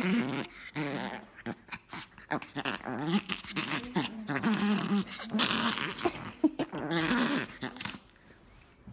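Pomeranian growling in play while mouthing and biting at a hand, a run of wavering growls that stops near the end.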